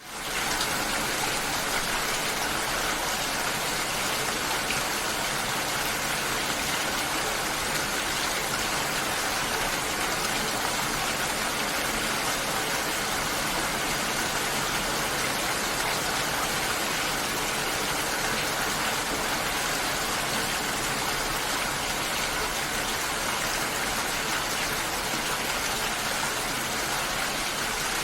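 Steady, dense rainfall hissing evenly, fading in quickly at the start.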